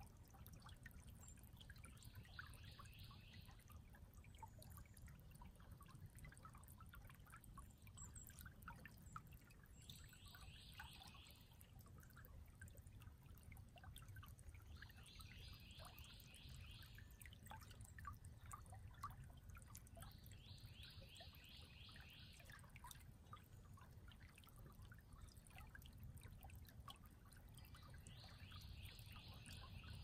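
Faint creek water babbling and trickling steadily, with scattered small drips and splashes. A bird sings a short trill of rapid notes five times, every five to eight seconds.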